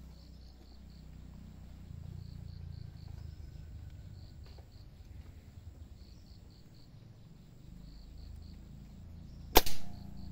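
Suppressed air rifle firing a single shot near the end, a sharp crack with a brief second report right after. Insects chirp faintly in the background.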